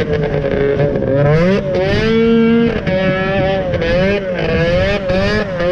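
Snowmobile engine running under the rider, its pitch rising and falling again and again with the throttle, held steady for a moment about two seconds in.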